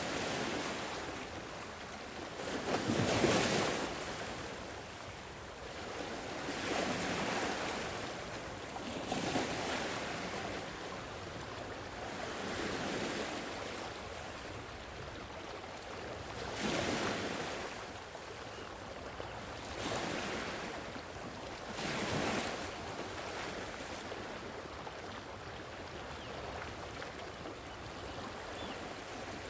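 Sea waves washing onto a shore, each breaking wave swelling and falling away over a few seconds; the largest crash comes about three seconds in, with further strong breakers around seventeen and twenty-two seconds in.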